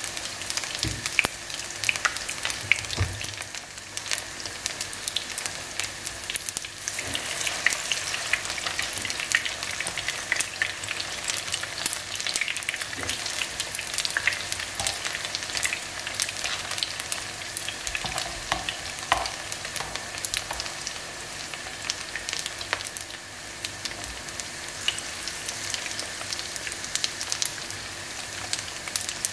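Zucchini and pasta fritters sizzling in hot vegetable oil in a frying pan, a steady sizzle full of small crackling pops.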